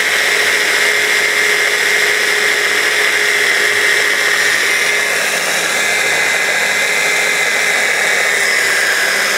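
Small wand blender with a mini food-processor bowl running continuously and loud, a steady whine over a whirr, as it chops walnuts, parsley, garlic and olive oil into pesto.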